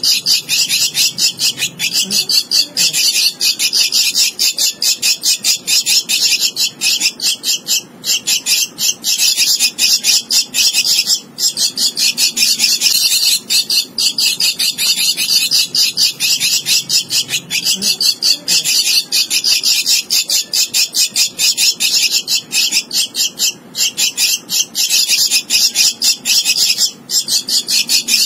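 Javan myna nestling begging: a loud, rapid, continuous chatter of short harsh calls, broken by brief pauses every few seconds.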